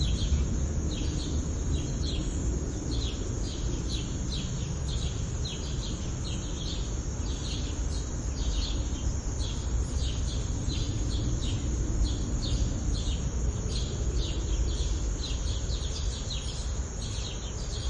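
Sparrows chirping over and over, about two to three short chirps a second, over a steady low rumble of background noise.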